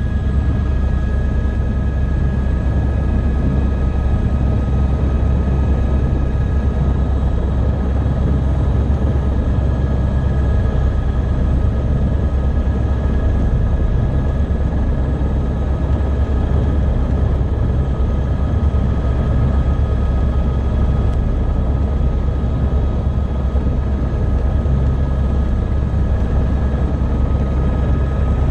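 Helicopter running on the pad with its rotor turning, heard from inside the cabin. A steady deep rumble with a constant high whine over it, unchanging throughout.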